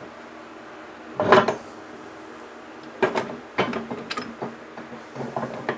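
Steel parts of a T56 transmission main shaft assembly clanking on the press plates as the freed shaft and its second gear and synchronizer stack are handled: one loud, ringing metal clank about a second in, then a run of lighter clicks and knocks.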